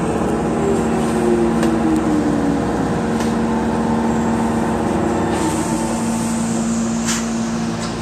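Electric commuter train (Nose Electric Railway 1700 series), heard from the cab, slowing: the traction motor whine falls in pitch over the first three seconds. A steady hum and running noise continue underneath, with a few faint clicks.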